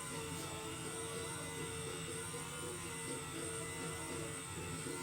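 Steady buzzing hum of a small electric motor running in a machine.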